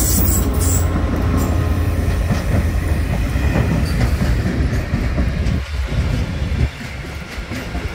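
Freight train of lignite-dust silo wagons rolling past close by: a diesel locomotive's low engine drone at the start gives way to the rumble and clatter of wagon wheels on the rails. The rumble drops off somewhat about two-thirds of the way in.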